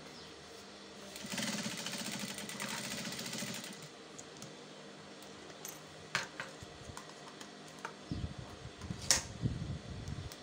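Emel industrial single-needle sewing machine stitching in one quick run of about two and a half seconds, starting about a second in. Later come a few sharp clicks and some rustling of fabric.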